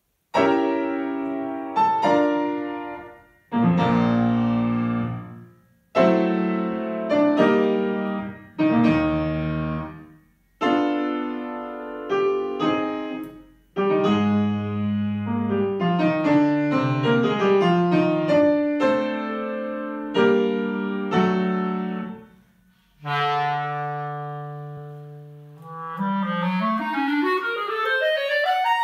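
Grand piano opening a piece with struck chords that each die away, then a clarinet comes in near the end with a line rising steeply in pitch over the piano.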